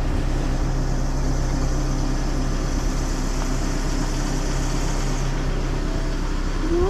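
An engine running steadily, a level drone with a low hum.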